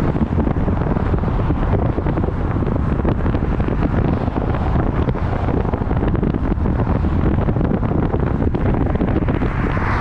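Wind buffeting the microphone of a moving car: a steady, dense low rumble of wind and road noise.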